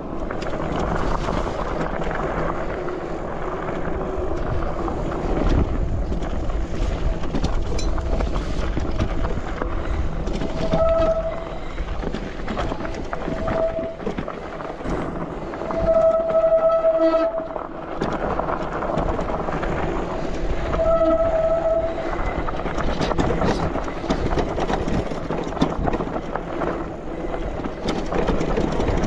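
E-bike brakes squealing, a steady-pitched squeal that comes on four times in the middle stretch, once for over a second, over a constant rumble of tyres on a rocky dirt trail and wind on the microphone.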